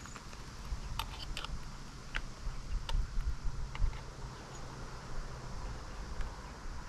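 Scattered light clicks and small knocks of hand work on a motorcycle, over a low steady rumble.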